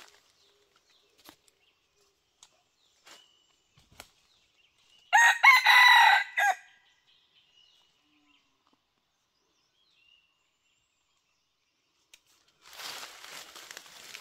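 A junglefowl rooster, the decoy cock, crows once, loud and close, about five seconds in, a crow lasting about a second and a half. Near the end there is rustling in dry leaves.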